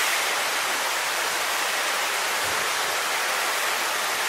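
A steady, even rushing hiss with no change in it, like running or falling water.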